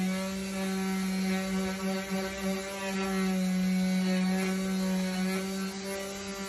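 Electric detail (delta) sander running with a steady motor hum while it sands the old finish off a guitar body.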